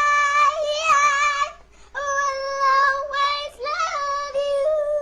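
A high-pitched voice singing long held notes in three phrases, with small wavers in pitch between them.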